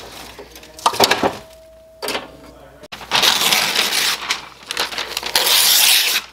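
A sheet of printed paper being crumpled and rustled by hand, a dense, loud crackle that runs for about the last three seconds. Before that come a few short scrapes and knocks of logs shifted with fireplace tongs.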